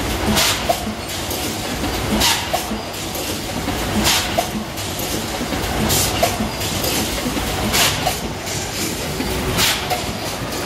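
Automatic pouch-filling packaging machine running: steady mechanical clatter, with a sharp hiss about every two seconds and small clicks in between.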